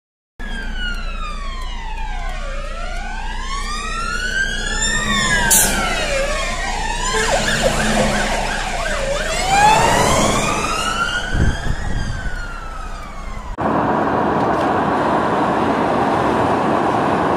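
Emergency wail sirens on a fire engine responding. At least two sirens sound together out of step, each rising and falling about every two and a half seconds. About three-quarters of the way through they cut off suddenly, and steady road noise from inside a moving car takes over.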